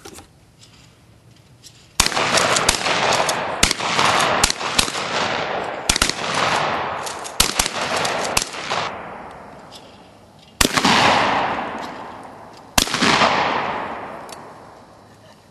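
Shotgun shots at flying clay targets. A quick string of more than ten shots starts about two seconds in and runs to about nine seconds, then two single shots follow about two seconds apart. Each shot trails off in a long echo.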